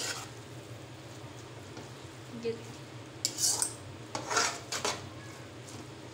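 Metal forks scraping and clinking against a nonstick pan as spaghetti in tomato sauce is tossed, in scattered clusters about three to five seconds in, over a steady low hum.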